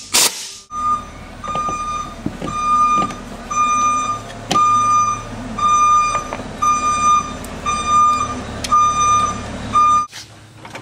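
A short burst from a pneumatic impact wrench on the cooling fan's hub nut. Then an electronic warning beep repeats about every 0.7 seconds over a low engine hum, cutting off suddenly near the end.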